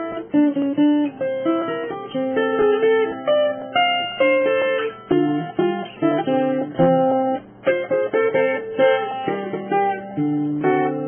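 Background music: a plucked guitar playing a melody of separate notes.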